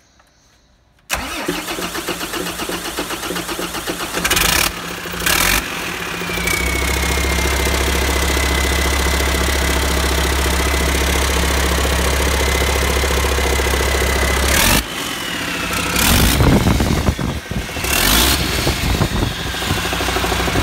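MAN D2676 inline-six common-rail diesel engine starting up: the starter cranks it rhythmically for about three seconds, it fires with a few loud bursts and settles into a steady idle with a high whine over the low engine note. Near the end the engine is revved a few times, rising and falling.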